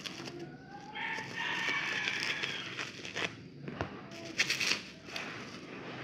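A rooster crowing once in a long drawn-out call about a second in. After it come a few sharp clicks and plastic crinkling as the bubble-wrap package is handled.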